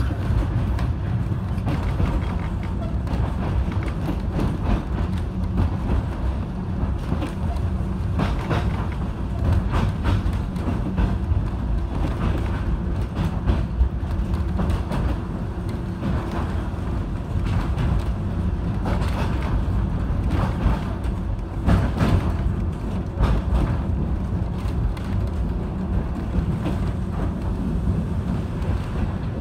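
W class electric tram running along the track: a steady low rumble from the wheels and running gear, with scattered clicks and knocks.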